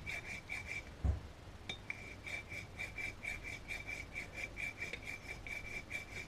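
Swiss-pattern hand file rasping in quick short strokes, about four a second, filing a flat on a rounded metal boss of a telescope's secondary mirror holder. Each stroke carries a faint high ring. The strokes pause briefly about a second in, where there is a single low thump.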